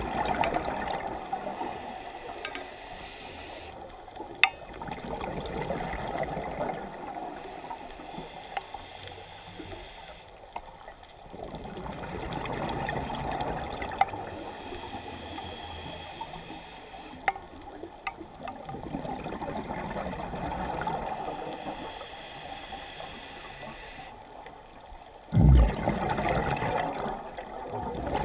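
Scuba diver's regulator breathing heard underwater: the bubbles of each exhalation gurgle past every six seconds or so, with a few faint clicks. Near the end a louder, deeper rush of bubbles.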